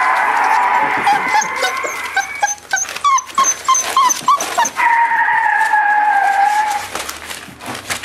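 Five-week-old Boerboel puppies whining. A long high whine is followed, about three seconds in, by a run of short yelping squeaks, then a second long whine that drifts slightly lower and fades out near the seven-second mark.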